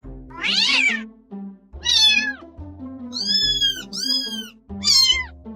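A domestic cat meowing five times, each meow a short call that rises and falls in pitch, over background music with low steady notes.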